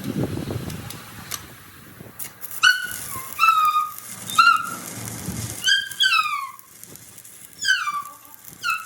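A series of about seven short, high-pitched animal calls, each falling in pitch, over a busy background.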